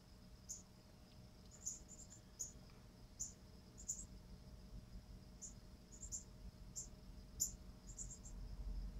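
Crickets chirping faintly: short high chirps, some single and some in quick groups of two or three, about one to two a second, over a faint steady hum.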